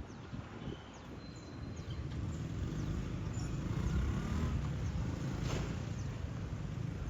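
Low rumble of a passing road vehicle, swelling from about two seconds in, with small birds chirping now and then.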